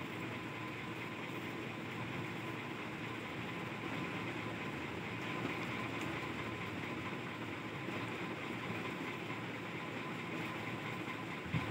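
Steady background noise with a faint high steady tone in it, and a single soft knock near the end.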